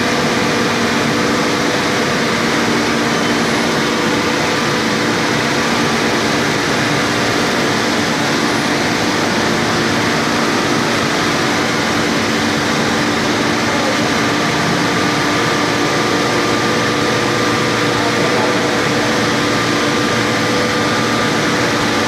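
Steady, loud noise of heavy forge-shop machinery: a constant rushing sound with several steady humming tones running through it, unchanging throughout.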